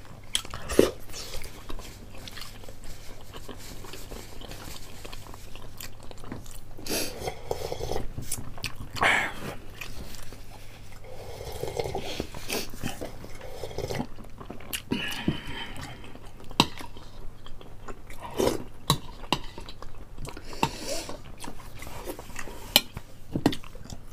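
Close-up eating sounds: chewing and biting fried chicken, with wet mouth clicks and smacks, and sips from a bowl.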